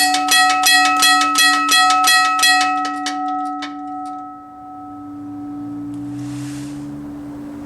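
US&S teardrop railroad crossing bell ringing, its striker hitting about three times a second, then stopping about two and a half seconds in. A few weaker, uneven strokes follow, and the bell's ringing tones fade away over the next two seconds. A steady low hum runs beneath, and a faint low rumble comes in near the end.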